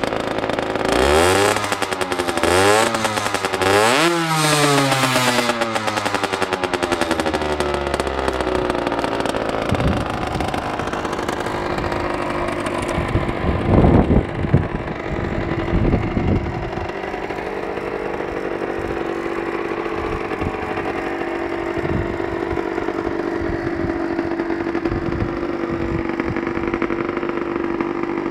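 Derbi Senda Xtreme R 50cc two-stroke engine breathing through a Metrakit Thrower expansion-chamber exhaust, revved up sharply three times in quick succession and then falling back to a steady idle. A couple of louder sudden bursts come about halfway through.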